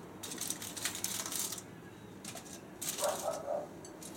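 Aluminium foil crinkling and rustling as it is handled and pressed around chopped hot dogs, in a quick flurry of crackles during the first second and a half, then a few lighter crackles. A short faint pitched sound comes about three seconds in.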